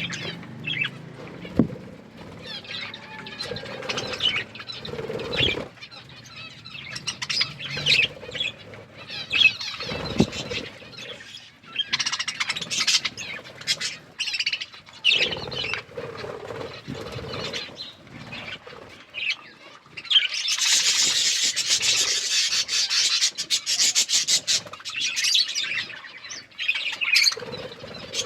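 Budgies chirping and chattering in quick, irregular calls, with a louder, denser spell about twenty seconds in.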